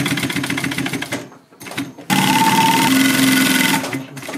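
Industrial sewing machine stitching a leather zipper trim: a fast, even clatter of needle strokes for about a second, then, after a short pause, a louder, steady run for about a second and a half.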